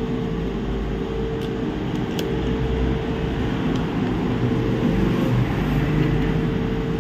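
Steady background machine hum with a constant mid-pitched tone and a low rumble, with a few faint light clicks.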